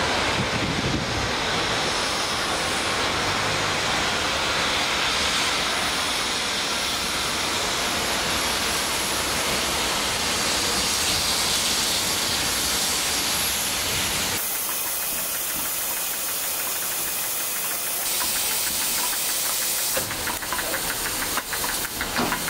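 Steam locomotives, led by LMS Black Five 44871, drawing a train in with a steady loud hiss of steam over the low rumble of the train. About two-thirds through, this changes to a standing locomotive hissing steam, and near the end water splashes from a pipe onto the ballast.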